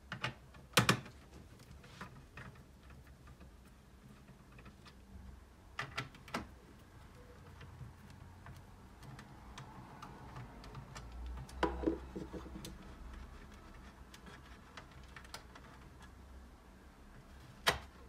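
Scattered sharp clicks and light metal taps as a screwdriver works the screws out of the sheet-metal cover over the RAM in a Dell OptiPlex 3011 all-in-one PC. The loudest clicks come about a second in, twice around six seconds, and just before the end.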